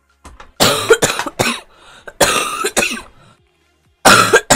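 A girl coughing in three fits: a run of several coughs about half a second in, a second fit around two seconds in, and a short one near the end.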